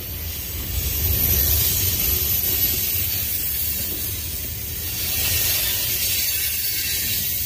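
Manifest freight train's tank cars rolling past close by: a steady rumble of wheels on rail with a high hiss over it, swelling a little twice.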